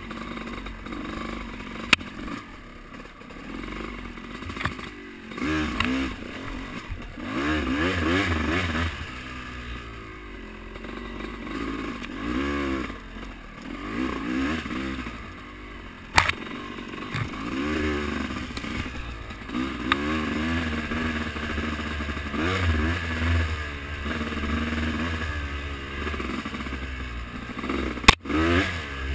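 Off-road vehicle engine revving up and falling back over and over as it rides a trail. Three sharp knocks cut through: one near the start, one midway and one near the end.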